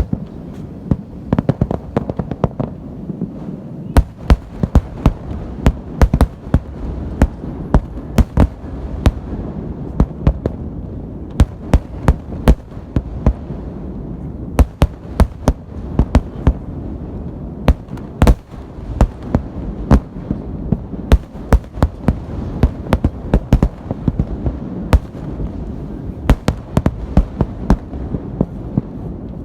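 Fireworks salute: an irregular volley of sharp booms, several a second, over a continuous low rumble of further bursts.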